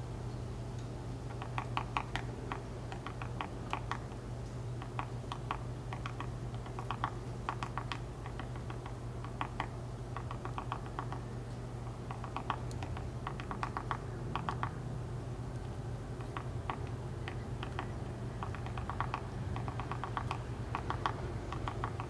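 A downy woodpecker pecking at the wooden birdhouse's entrance hole, chipping away the wood to enlarge the opening: short runs of rapid taps repeated with brief pauses, over a steady low hum.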